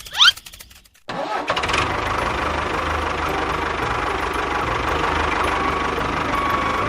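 A short rising whistle-like sweep, then a small engine starts about a second in and runs steadily.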